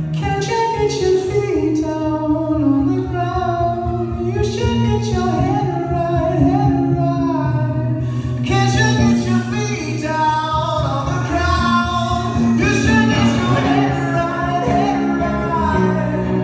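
Live music from a solo electric guitarist's set, the guitar played through an amplifier, with a sung melody over sustained low notes.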